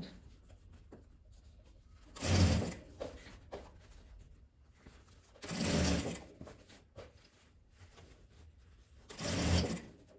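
Industrial straight-stitch sewing machine sewing in three short runs of about a second each, stopping between runs while the fabric of an oven mitt's cuff is turned around the curve.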